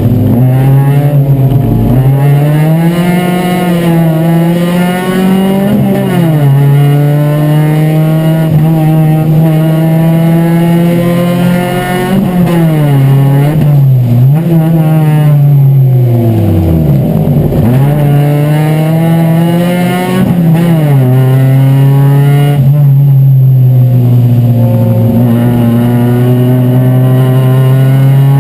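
Chevrolet Chevy race car's four-cylinder engine heard from inside the cabin, running hard at racing revs. The pitch climbs and holds on the straights and dips at gear changes and braking, with a deep drop about 17 seconds in before it climbs again.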